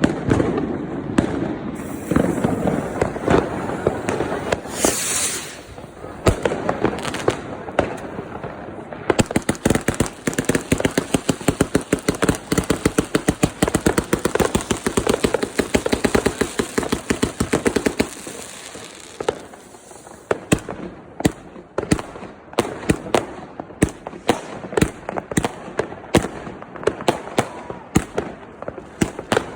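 Fireworks going off in quick succession: a dense crackle of sharp bangs, at its fastest and most continuous from about nine to eighteen seconds in, then thinning to separate bangs. A short high hiss comes about five seconds in.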